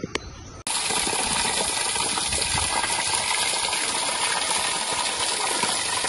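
A thin stream of spring water falling down a rock face and splashing onto stones, a steady splashing that starts suddenly about half a second in.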